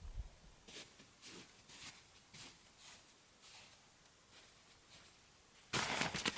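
Faint footsteps, about two steps a second, walked at an even pace over the ground for a few seconds, then fading out. Near the end a sudden loud rush of noise starts.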